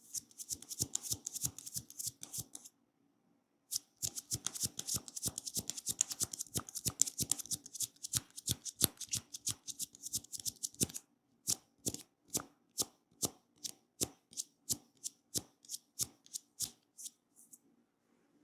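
Hands tapping and slapping on a person's head in percussive massage strokes. Two runs of fast, rapid-fire taps are followed by slower single slaps at about three a second, which stop shortly before the end.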